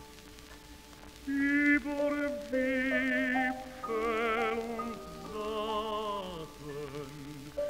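Operatic tenor singing a German art song (lied) with piano accompaniment. The piano plays softly alone at first; the voice enters about a second in and sings phrases with a wide vibrato.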